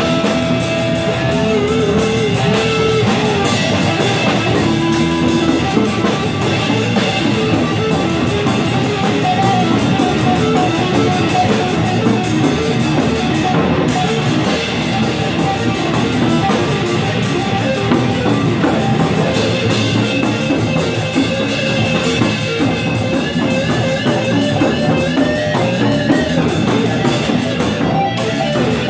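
Drum kit and guitar playing rock music together live, loud and without a break, with held guitar notes over the drumming.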